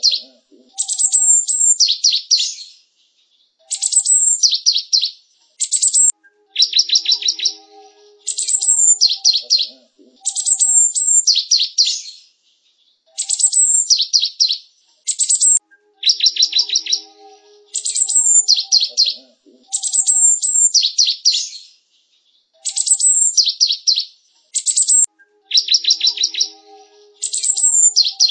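Java sparrow singing: high chirping, clicking phrases about a second and a half long, one after another with short pauses.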